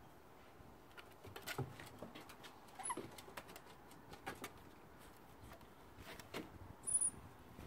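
Corgi puppy's paws and claws tapping on wooden deck steps as it walks down them: scattered light clicks and pads. Two brief high squeaks, about three seconds in and near the end.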